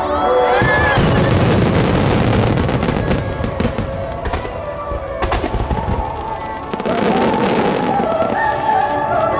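Aerial fireworks shells bursting in quick succession, a dense barrage of bangs and crackles for the first few seconds that thins out and then picks up again near the end, with music playing underneath.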